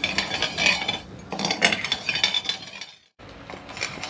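Steel spoon stirring sugar and water in a stainless steel pan, scraping and clinking against the metal in repeated passes as the sugar dissolves. The sound breaks off about three seconds in and comes back quieter.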